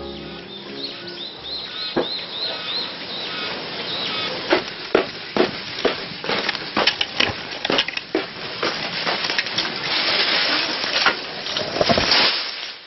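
A bird chirps repeatedly for the first few seconds. Then dry branches are snapped and broken by hand in a run of sharp cracks, with brushy rustling of the twigs near the end.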